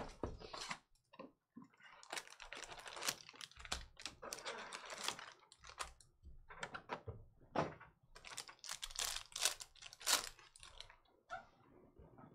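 Foil-wrapped Panini Prizm trading-card packs crinkling and the cardboard hobby box being handled, with many irregular taps and clicks as the packs are pulled out and stacked; a pack is opened and its cards slid out.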